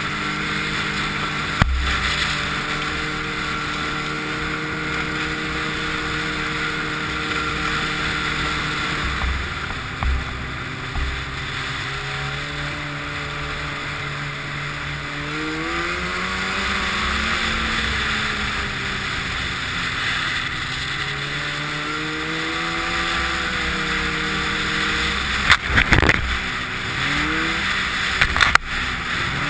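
Snowmobile engine running at a steady pitch, then revving up and down repeatedly as the throttle changes, over a steady hiss. A couple of sharp knocks come near the end.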